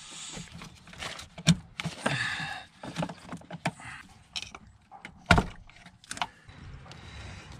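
Irregular sharp clicks and knocks of hand tools and parts being handled in a car's engine bay, about eight of them, the loudest a little over five seconds in.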